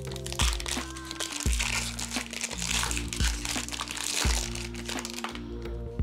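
Foil Pokémon booster pack wrapper crinkling as it is torn open and handled, over background music with a deep, steady beat. The crinkling stops shortly before the end.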